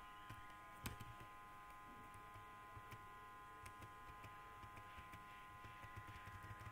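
Faint, irregular clicks of computer keyboard keys being typed, with a slightly louder click just before a second in, over a steady low electrical hum.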